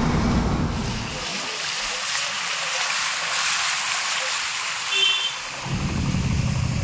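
Steady hiss of heavy rain and wet-road spray around a moving car, with the car's low road rumble in the first second and again near the end. A brief high tone sounds about five seconds in.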